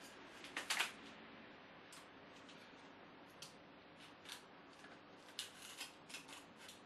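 Quiet tabletop handling noise: a scattering of small, sharp clicks and light crinkles as a spoon is left in a mug and a plastic package is picked up and moved. The loudest cluster comes a little under a second in, with lighter clicks spread through the later seconds.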